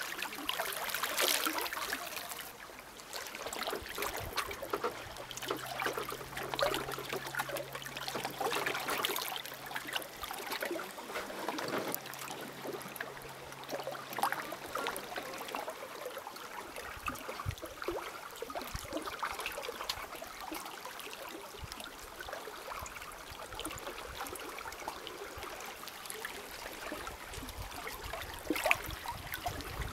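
Lake water lapping and trickling against rocks at the shore, a busy, irregular patter of small splashes. A faint low hum runs underneath for about ten seconds in the first half.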